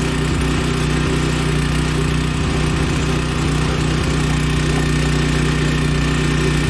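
A small backhoe's engine running at a steady idle, its pitch unchanging throughout.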